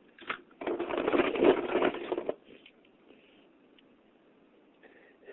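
Die-cast toy cars clattering and rattling against each other as they are rummaged through, in one burst of about a second and a half.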